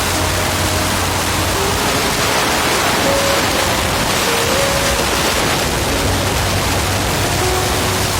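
Heavy monsoon rain pouring down in a steady, dense hiss.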